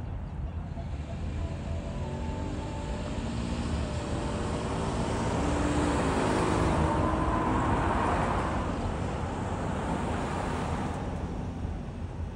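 A road vehicle passing: its noise swells to a peak about seven or eight seconds in and then fades, with a faint hum that falls in pitch as it goes by, over a steady low rumble.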